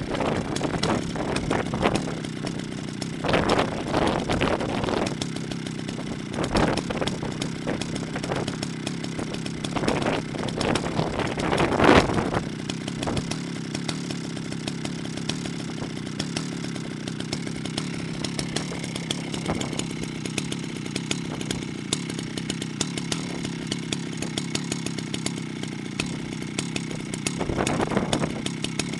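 Jonsered 70E two-stroke chainsaw running at idle, with several short blips of the throttle, the sharpest about twelve seconds in, and a longer rev near the end.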